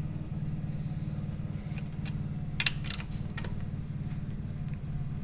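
A race engine running steadily while it is being broken in, a low, even drone. A few sharp metal clicks from a ratchet wrench tightening brake caliper bolts come about two and a half to three and a half seconds in.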